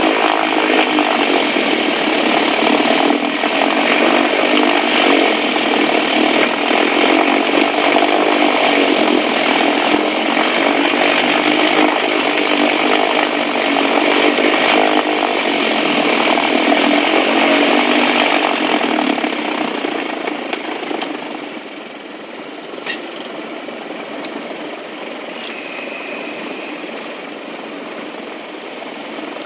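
A Piper Aztec's twin piston engines heard from inside the cabin, running at high run-up power with the pitch wavering slowly, then throttled back to a quieter idle about 20 seconds in.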